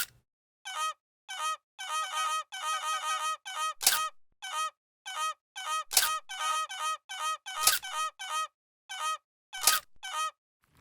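Geese honking in a rapid series of short, repeated honks, with a louder, harsher honk breaking in about every two seconds.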